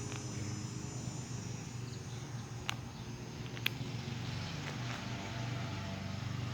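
Outdoor background sound: a steady low hum with a faint high hiss, and two sharp clicks about a second apart near the middle.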